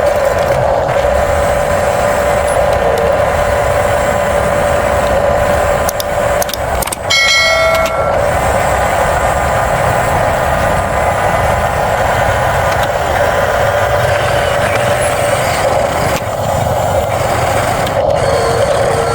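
Radio-controlled toy construction machines running with a steady mechanical whine. A brief ringing, chime-like tone sounds about seven seconds in.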